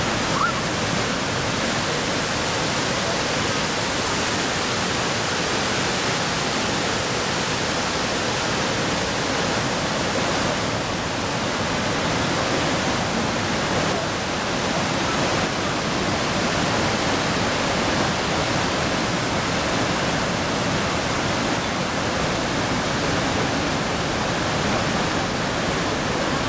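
Steady rush of white water: the Göta älv, released through dam spillway gates, pouring down a rocky gorge in rapids.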